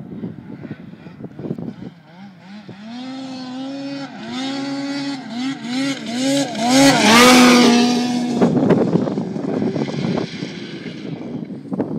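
Snowmobile engine revving on grass, its pitch rising and falling several times with the throttle, then held high and loudest just past the middle before it drops away. Wind buffets the microphone at the start and again near the end.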